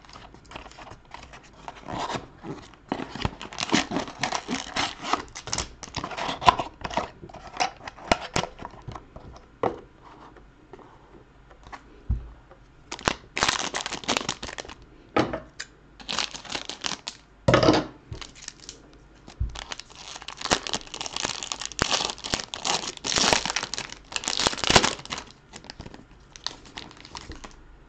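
A sealed trading-card box opened by hand, then the foil wrapper of the pack inside crinkling and tearing open: irregular rustling, with several louder bursts of crackling and ripping in the second half.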